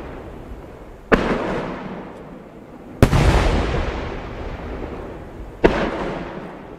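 Aerial firework shells bursting overhead: three sharp booms about two seconds apart, each trailing off in a long fading rumble.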